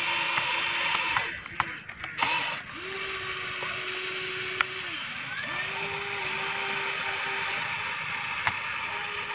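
Huina radio-controlled toy excavator's electric motors whining steadily as the arm and bucket move. The whine stops for a moment about a second in, with a few clicks and scrapes, and dips briefly again halfway through.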